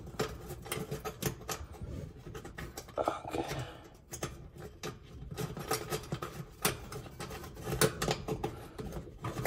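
Irregular light metal clicks, taps and rattles of a GE broiler's perforated sheet-metal heat guard being handled and fitted back into place over the igniter.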